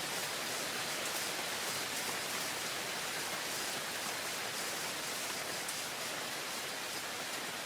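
Steady rain falling: an even hiss of water, with faint ticks of individual drops.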